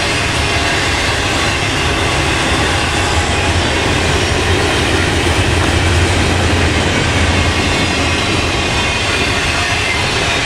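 Intermodal freight train cars rolling past, a steady rumble of wheels on rail that swells slightly in the middle.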